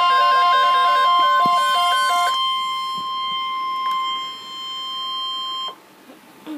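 NOAA Weather Radio warning alarm tone: a single steady high tone that cuts off abruptly about 5.7 seconds in. Music plays over it for the first two seconds or so, then stops.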